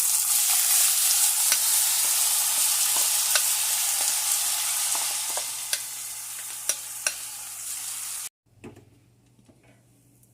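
Rice frying in hot oil with garlic in a non-stick pot: a loud, steady sizzle with scattered clicks of stirring against the pot. The sizzle slowly eases, then cuts off abruptly about eight seconds in, leaving it much quieter.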